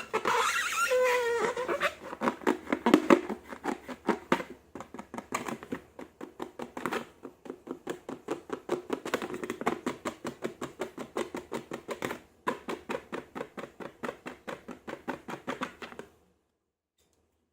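Slime being squeezed and poked by hand: a squeaky pitched sound at first, then a rapid run of sticky clicks and squelches, about four a second, that stops suddenly near the end.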